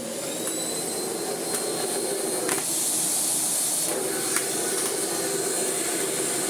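Miele Blizzard CX1 bagless vacuum cleaner's motor finishing its spin-up with a rising whine, then running steadily with a high-pitched whine over rushing air. A few light clicks sound over it.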